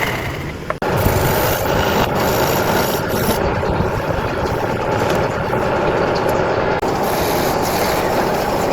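Continuous rasping, rubbing noise of wood being worked, with a brief break just under a second in.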